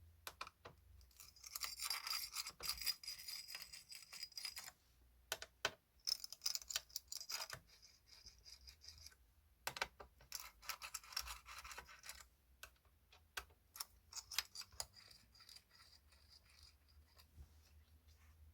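Several bursts of scratchy scrubbing on the laptop's parts, with scattered small clicks between them.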